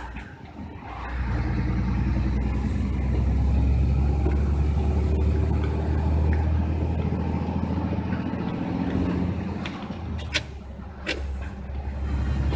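Truck engine and road noise inside the cab while driving: a deep, steady rumble that comes up about a second in, with a couple of sharp clicks near the end.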